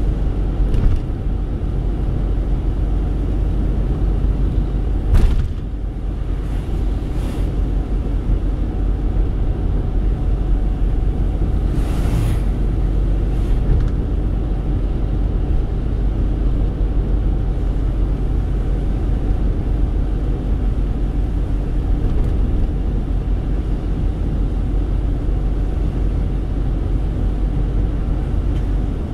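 Inside a moving car: steady low rumble of engine and tyres on a wet road. There is a brief louder knock about five seconds in and a short hiss around twelve seconds.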